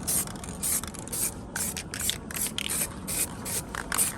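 Paint spray gun hissing in short, quick pulses, about three or four a second, laying the final coat on a repaired bumper.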